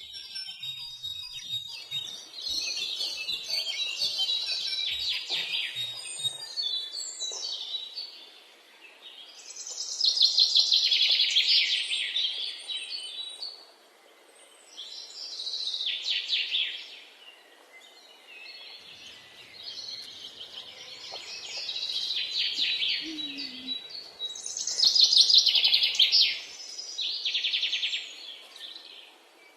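Many small birds chirping and calling together at dusk, a dense chatter of rapid, high chirps that swells and fades in waves, loudest about a third of the way in and again near the end.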